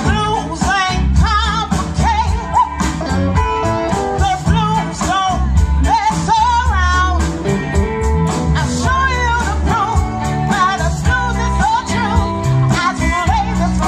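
Live blues band playing a slow, soulful song, with a woman singing lead over bass, guitar and a steady drum beat.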